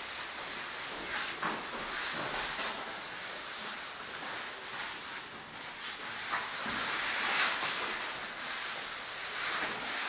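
Soft rustling hiss of bodies and clothing sliding and shifting on a floor. It swells and fades, rising about a second in and again around the seven-second mark.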